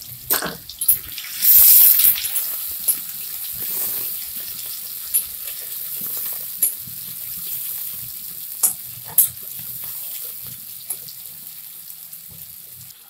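Sliced onions sizzling as they fry in hot mustard oil in a kadai, with a spatula stirring them and clicking against the pan now and then. The sizzle surges loudest about two seconds in, then slowly dies down.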